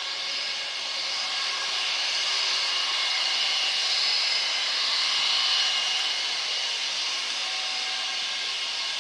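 Airliner's engines passing close by: a rushing whine that swells to a peak about halfway through and then eases off.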